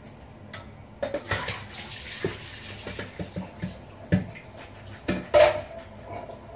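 Water poured off steeped asparagus from a plastic bowl into a kitchen sink, splashing for a second or two from about a second in. It is followed by a few knocks of the bowl against the sink, the loudest about five seconds in.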